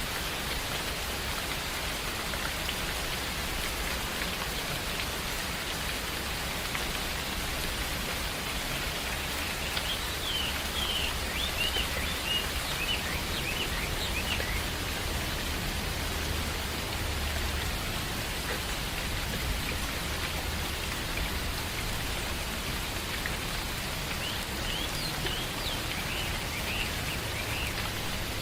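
Steady rain falling on forest foliage, with small birds chirping in two short spells, about ten seconds in and again near the end.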